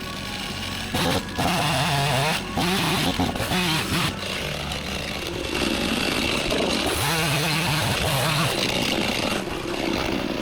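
Chainsaw cutting through a log, its engine pitch rising and falling as it works in the cut.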